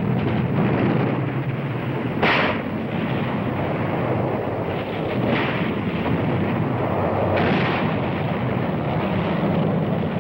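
Battle soundtrack of artillery and gunfire: a continuous dense din of firing, with louder sharp blasts about two seconds in, around five seconds and about seven and a half seconds in.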